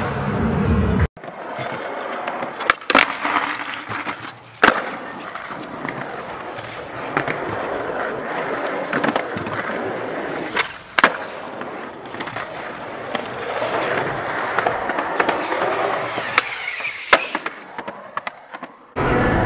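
Skateboard wheels rolling on concrete, with several sharp wooden clacks of the board popping and landing.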